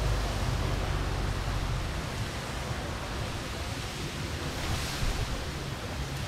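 Wind buffeting the microphone, with the low, distant drone of a motorboat and a jet ski running on the river.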